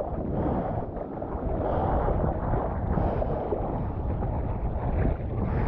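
Strong offshore wind buffeting the microphone in a dense, rumbling roar, over the wash of sea water and surf.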